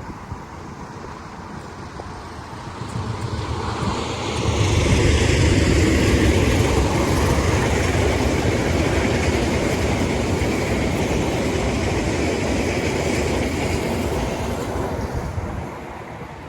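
A train passing close by: its rumble builds about three seconds in, stays loud with wheel-on-rail noise through the middle, and drops away near the end.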